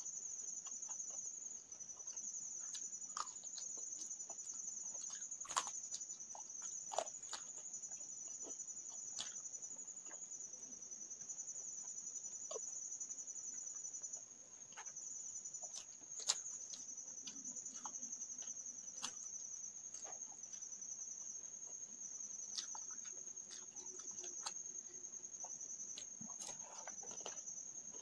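Close-up eating sounds: fingers mixing rice and curry on a plate, and chewing, with scattered soft clicks and smacks. Under them runs a steady high-pitched, finely pulsing trill like a cricket's.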